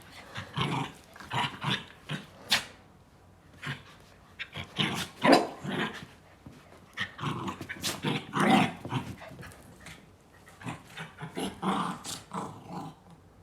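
A dog growling and grumbling in irregular rough, gravelly bouts, some short and some about a second long, a strange monster-like noise rather than an ordinary bark.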